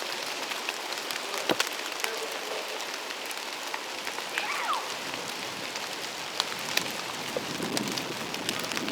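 Rain pattering steadily on leaves, with many scattered sharper drop ticks.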